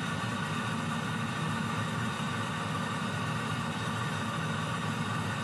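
Steady engine and road noise heard inside a police patrol car driving at highway speed.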